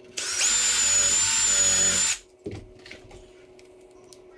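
Milwaukee cordless drill driving a screw into the chair's wooden frame: a steady, high motor whine for about two seconds that cuts off, followed by a light knock.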